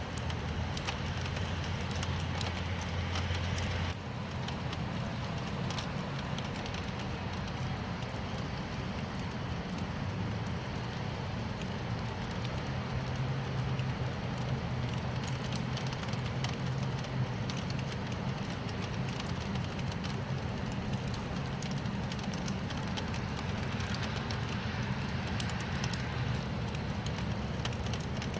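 Steady rain with a crackling patter of drops and a low rumble underneath.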